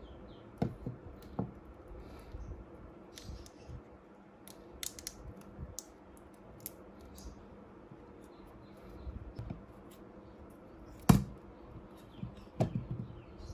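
Scattered small clicks, taps and rustles of hands working with battery wires, electrical tape and tools on a rubber work mat, with a sharp knock about eleven seconds in and a few quicker taps just after.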